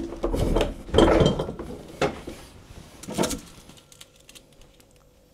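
Knocks, clinks and rustles as a small hotel-room refrigerator is rummaged in and a plastic pudding cup is taken out, over about the first three seconds.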